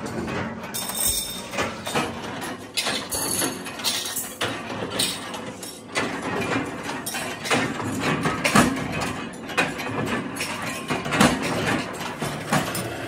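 Metal-stamping workshop noise: a punch press cutting perforated steel discs, with many irregular sharp metal clanks and knocks.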